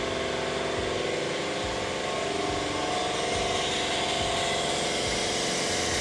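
Air-powered vacuum brake bleeder running steadily, a hum with a hiss over it, sucking brake fluid and air out through the front brake caliper's bleed nipple while the brake line is bled.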